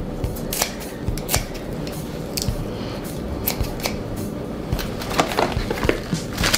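Kitchen scissors snipping lettuce leaves in a string of sharp, separate clicks. About five seconds in there is a denser rustle as a hand digs into a plastic container of greens.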